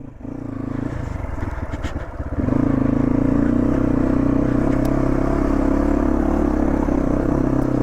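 Motorcycle engine running under way, uneven at first, then louder and steady from about two and a half seconds in.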